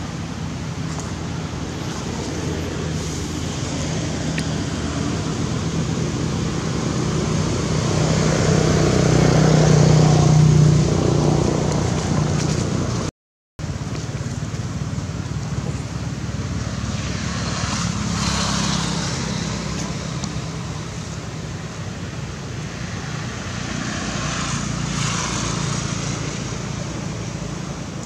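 Steady outdoor rumble and hiss with a low hum. It swells about a third of the way in and twice more, more faintly, later on, and breaks off for a moment near the middle.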